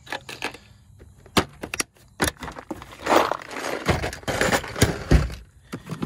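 Plastic parts organizer cases full of brass and copper plumbing fittings being handled: a run of sharp clicks and snaps, then from about three seconds in a couple of seconds of dense clattering, with the metal fittings rattling, as a case is slid out of a stack.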